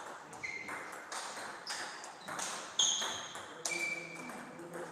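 Table tennis rally: the ball clicking back and forth off the bats and the table, about two hits a second, each hit leaving a short high ping.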